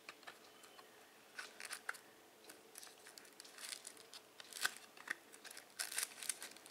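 Hands handling a clear plastic DVD case and working the disc out of it: scattered faint clicks, scrapes and rustles, a few sharper ones toward the end.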